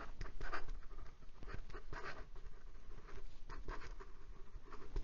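Penbbs fountain pen with a fine mini Fude nib writing fast, joined-up strokes on lined notebook paper: a string of quick, irregular nib scratches as the same word is written over and over.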